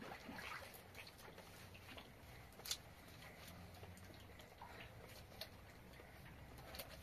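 Very faint water drips and small splashes while a child is washed by hand from a basin, over quiet room tone, with a single sharp tap a little under three seconds in.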